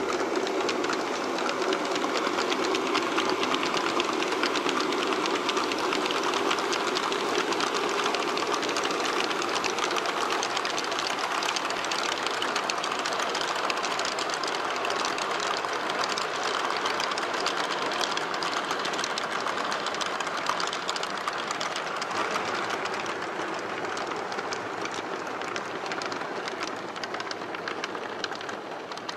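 HO scale model freight train rolling over track whose rail tops are notched with a Dremel disc at scale 39½-foot intervals to imitate jointed rail. The wheels click over the gaps in a steady clickety-clack over a running rumble, made louder by the track being glued firmly down with wood glue. It grows a little fainter near the end.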